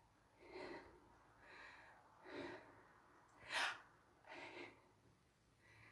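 A person breathing hard after dancing: faint puffs of breath about once a second, one near the middle louder than the rest.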